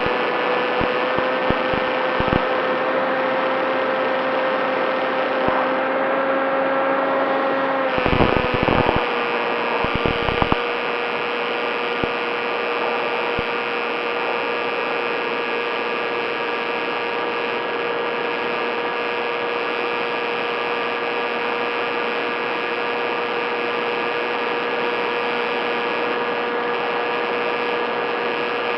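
Motor and propeller of a Skywalker FPV model plane running steadily at cruise, heard as a steady whine with wind noise. About 8 seconds in the pitch dips slightly with a few short buffets, then it holds steady again.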